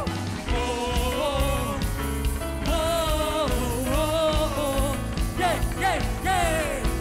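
Worship song: a sung melody with gliding, wavering notes over band accompaniment with a steady bass.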